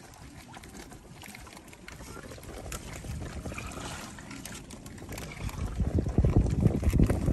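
Sea water sloshing and splashing, with a low rush that swells over the last couple of seconds.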